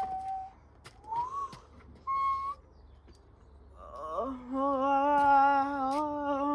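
A voice making a few short, high, rising calls, then one long held lower note with a slight waver from about four seconds in.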